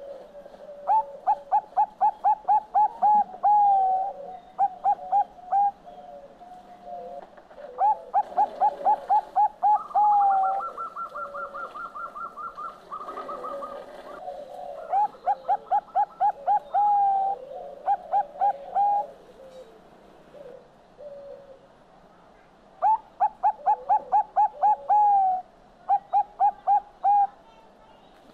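Zebra dove (perkutut bangkok) singing its staccato cooing song, four times over: each time a quick run of clipped coos ending in a drawn-out note, then a few more coos. Around the middle a separate, higher rapid trill runs for a few seconds.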